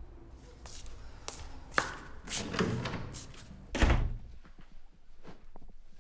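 A run of knocks and thuds: a sharp knock a little under two seconds in, the loudest a heavy thud about four seconds in, then a few fainter clicks.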